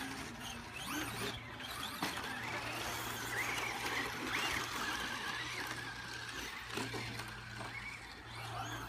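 Radio-controlled cars racing on a dirt track: their motors whine, rising and falling in pitch again and again, over a steady hiss.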